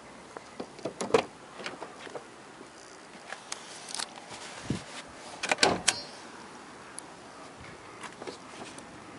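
Clicks and knocks of a 2007 Mazda 6's driver's door being opened and handled, with the loudest clatter about a second in and again between five and six seconds.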